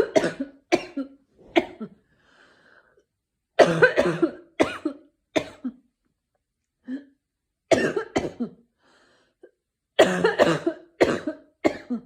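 A person with a sore throat coughing in repeated fits, two to four coughs at a time, with faint breaths drawn between the fits.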